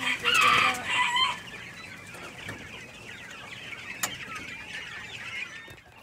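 Chickens clucking in a coop, with one loud call about a second long near the start and many short, quick calls afterwards.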